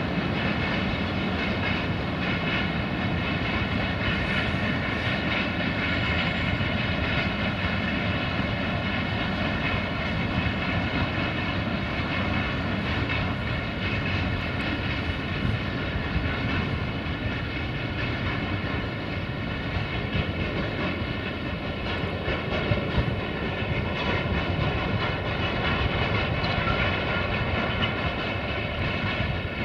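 Long freight train of tank wagons rolling past: a steady rumble of wheels on rail with a steady high whine over it.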